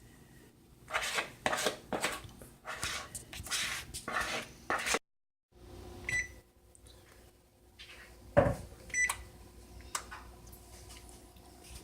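Spoon scraping thick blueberry batter from a mixing bowl into a baking pan: a run of repeated scrapes, then a few clinks and one louder knock against the dishes.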